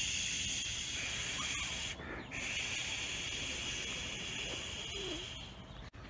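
A steady, high-pitched hiss that breaks off briefly about two seconds in and fades out near the end.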